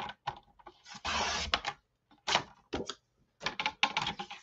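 CraftEmotions paper trimmer cutting cardstock: a scraping slice about a second in, when the cutting head is drawn along its rail, with clicks and paper rustle before and after as the sheet is set against the guide.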